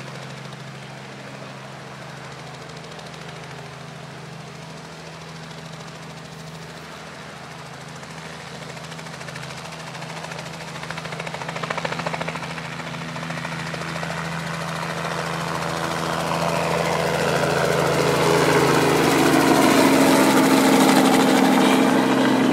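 Robinson R44 helicopter's six-cylinder piston engine and rotor running steadily, growing much louder over the second half as the helicopter comes close, with sweeping tones near the end.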